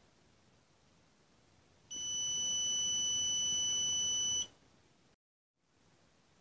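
Piezo buzzer on an Arduino PIR motion-sensor alarm circuit sounding one steady high-pitched beep about two and a half seconds long, starting about two seconds in: the alarm set off by a hand moving in front of the motion sensor.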